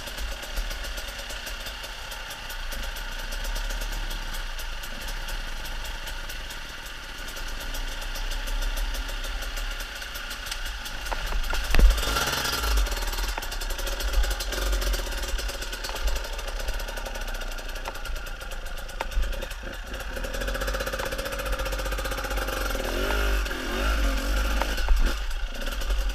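Enduro dirt bike engine heard close up, running at low revs and revving up and down as the bike picks its way over rocks, with a steady low rumble and a few sharp knocks from the rough ground.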